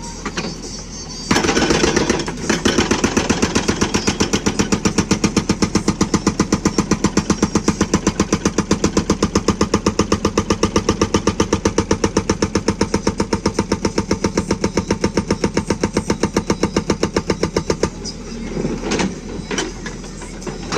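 Hydraulic breaker on a JCB backhoe loader hammering at a fast, even rate of about six blows a second over the running diesel engine. It starts a little over a second in and stops near the end.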